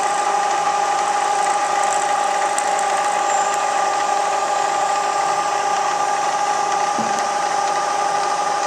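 Milling machine running steadily, a constant machine whine with a few fixed tones.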